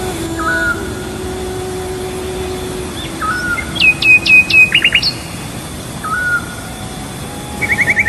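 Birds calling over a steady hiss. Short whistled chirps come first; about four seconds in there is a run of loud, sharp notes dropping in pitch, and a quick trill comes near the end.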